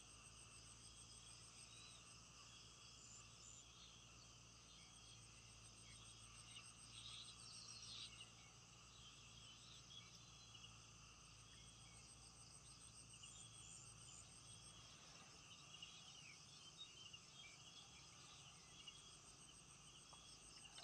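Faint, steady chorus of insects trilling, with a few brief higher chirps about seven to eight seconds in.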